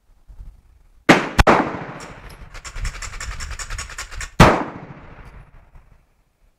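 Star BM 9mm pistol being fired with slow, aimed shots: a loud shot about a second in with a second sharp crack right after it, and another shot about three seconds later, each echoing off the range. Between the shots there is a fast run of faint cracks.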